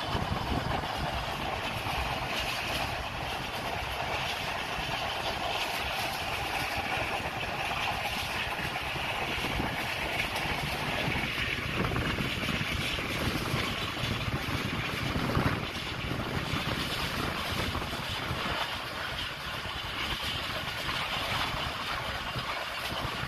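Passenger train running at speed, heard from inside the carriage: a steady running rumble, with one brief louder knock about fifteen seconds in.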